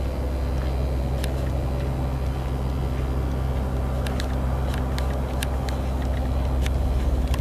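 Single-engine piston airplane engine running with a steady low drone as the plane moves along the runway, growing slightly louder near the end. A few faint sharp ticks are scattered through it.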